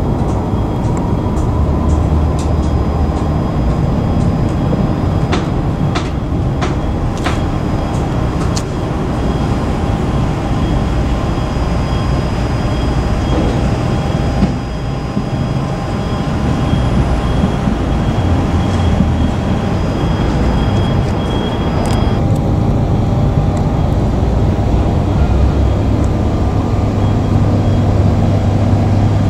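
Steady street noise of vehicle engines and traffic, a constant low rumble with a few short clicks about five to seven seconds in and a low engine hum growing stronger near the end.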